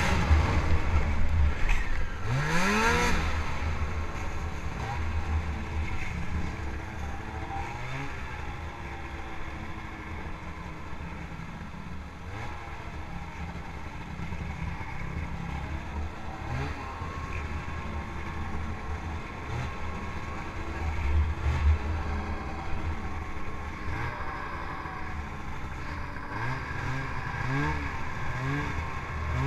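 Snowmobile's Rotax engine running under way, revving hard at first, then settling to a steadier, quieter pace with its pitch rising and falling as the throttle changes. Near the end come a few quick throttle blips.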